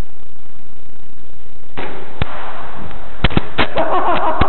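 Airsoft gunfire in a concrete arena: a burst of noise about two seconds in, then a fast, irregular run of sharp cracks and pops from about three seconds in.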